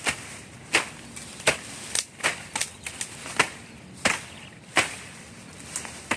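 Repeated sharp chopping strikes on wood, about a dozen, coming irregularly roughly every half second, from wood being cut for a shelter build.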